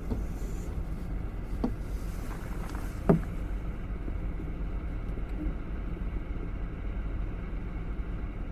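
Steady low drone of a car ferry's engines under way, with a few light clicks and one sharp knock about three seconds in.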